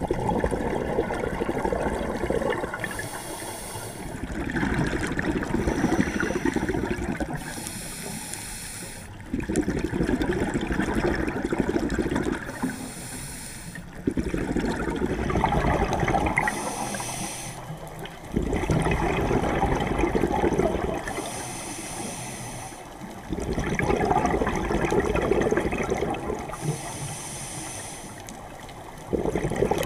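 Scuba diver breathing through a regulator underwater, about six breaths: each a short hiss on the inhale, then a few seconds of bubbling as the breath is let out.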